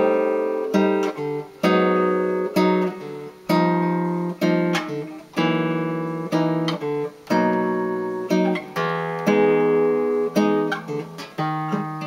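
Solo guitar playing a jazz chord-melody extended ending: a series of rich chords, each struck and left to ring before the next, about a dozen in all.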